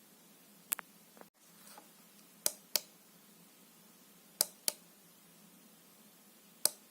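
Sharp clicks, mostly in quick pairs, repeating about every two seconds, with a faint rustle between the first two pairs.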